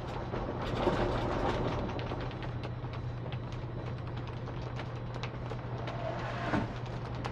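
Sailing yacht under way under headsail: wind and water rushing along the hull over a steady low hum, with scattered light ticks and creaks from the boat.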